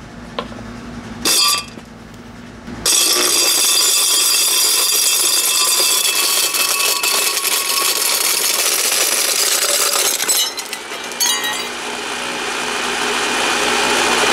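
Old Hamilton Beach blender grinding chunks of rock: after a brief clack, a loud rattling and clattering of stones thrown against the blades and jar starts about three seconds in. A steady high motor whine comes through near the end.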